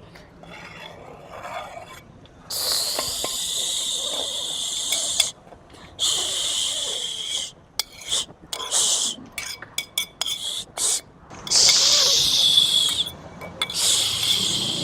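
Food sizzling in a hot frying pan, in several bursts of hissing that start and stop abruptly, with faint voices underneath.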